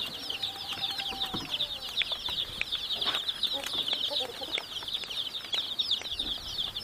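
A large group of baby chicks peeping constantly, many high, short cheeps falling in pitch and overlapping into a continuous chatter.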